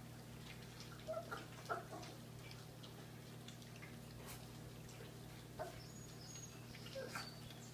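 A litter of black German Shepherd puppies eating from stainless steel bowls: faint chewing, lapping and small clicks against the bowls, with a few short squeaks scattered through, over a steady low hum.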